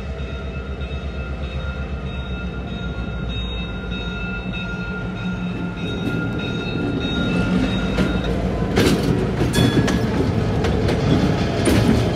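EMD GP38-2 diesel locomotive's 16-cylinder two-stroke engine running as it rolls slowly past. About eight seconds in it grows louder and a string of wheel knocks and clacks joins the engine sound as the locomotive comes alongside.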